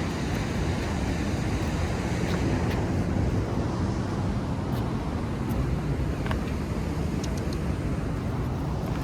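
Steady low rumble of wind on the microphone mixed with road traffic, with a few faint ticks.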